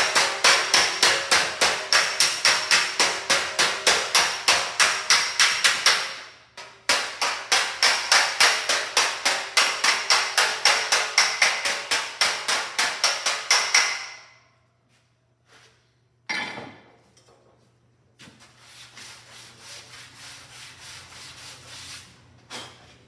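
Body hammer striking a metal fender with a dolly held directly behind it, hammer-on-dolly work to flatten a high spot: quick, even strikes at about four a second, with a short break about six seconds in, stopping about fourteen seconds in. Near the end, a sanding board is rubbed over the panel.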